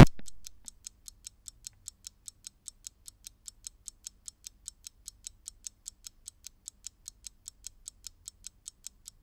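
Light, evenly spaced ticking like a fast clock or timer, about six ticks a second, following the tail of a rising swoosh that cuts off right at the start.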